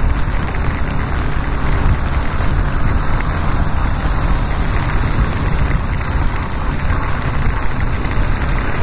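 Steady wind and road noise from a Yamaha XTZ 250 motorcycle riding on a wet highway in the rain: a low rumble with the hiss of rain and wet tyres over it.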